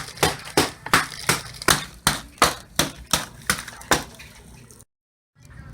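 A pack of saltine crackers being pounded on a countertop to crush them: a steady run of sharp knocks, about three a second, that stops near the end.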